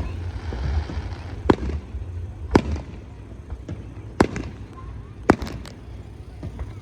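Aerial fireworks shells bursting: sharp, separate bangs about a second apart, with a quick run of several bangs a little past the middle.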